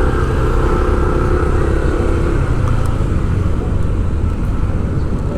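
Steady engine hum and road rumble of a moving motor vehicle.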